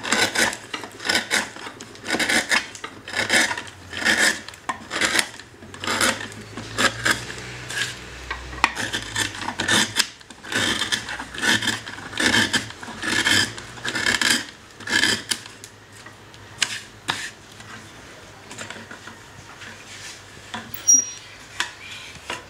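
A luthier's hand tool shaving violin wood in steady rasping strokes, about two a second, thinning out and growing fainter after about fifteen seconds. Worked from the side the grain allows, the wood 'sings' under the tool rather than resisting.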